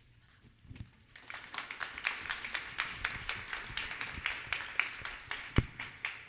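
Audience applauding, starting about a second in, with one louder low thump near the end.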